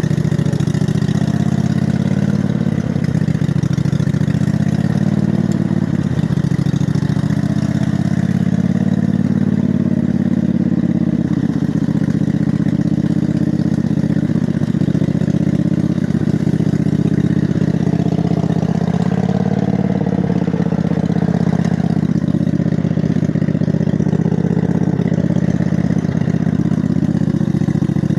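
Montgomery Ward riding mower's engine running steadily while the mower drives through flooded mud, its speed wavering up and down a little, rising around the middle.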